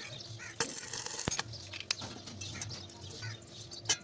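Small birds chirping, with a few sharp clicks or taps mixed in, the loudest near the end.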